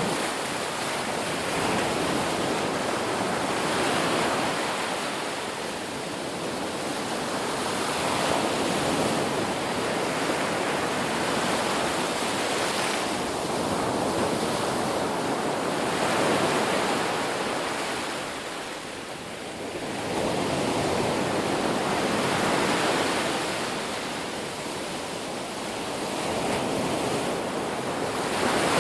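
Ocean waves breaking and washing ashore: a steady rush that swells and fades every few seconds.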